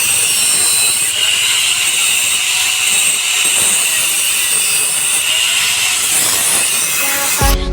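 Power grinder running steadily on metal, a loud hissing grind with a high wavering whine. Music cuts in at the very end.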